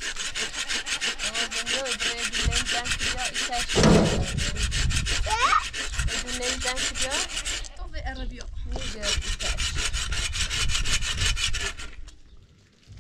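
Fast, evenly repeated rasping strokes, like a hand tool scraping or sawing, in two runs broken by a short pause about eight seconds in. The strokes stop about a second before the end, and there is a heavier knock about four seconds in.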